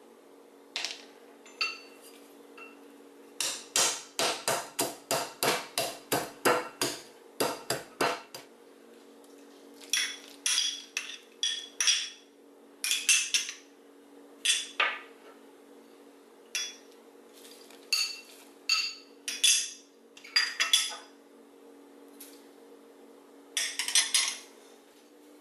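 Heavy granite pestle pounding in a granite mortar: a rapid run of sharp stone knocks, about three a second, for several seconds, then shorter groups of knocks and clinks with pauses between.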